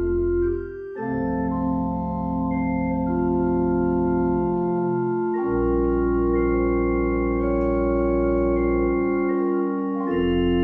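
Organ playing slow held chords over a deep bass, the chord changing about a second in, midway and near the end.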